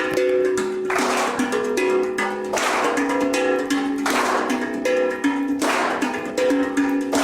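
Music: a plucked-string instrument playing a repeating melodic figure, with the group clapping together about every one and a half seconds.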